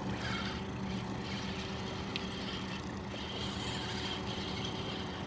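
Boat engine idling, a steady low hum with an even drone, and a single faint click about two seconds in.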